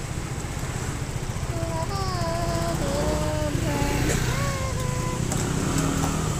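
A voice singing long, sliding held notes of a song, starting about a second and a half in, over a steady low rumble.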